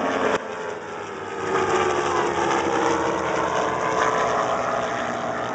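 Piston-engine propeller airplane flying past, its engine drone growing louder about a second and a half in, with the pitch sliding slightly lower as it goes by. There is an abrupt change in the sound just after the start.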